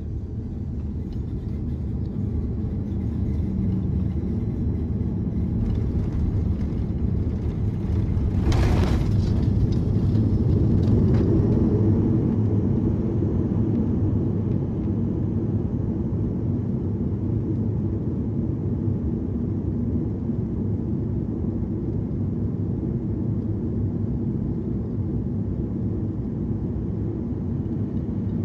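Cabin noise of an Airbus A340-300 airliner: a steady low rumble that swells over the first few seconds, with a brief sharp rush of noise about eight and a half seconds in.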